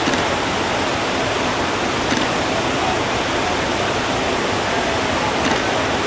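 Water pouring over a low river weir: a steady, even rush of white water.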